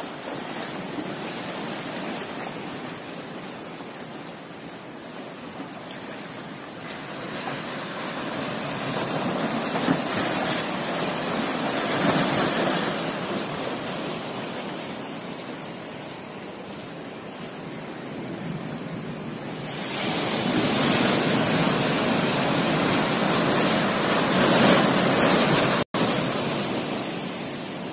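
Ocean surf breaking and washing up a beach: a steady rushing noise that swells louder about a third of the way in and again in the last third, cutting out for an instant near the end.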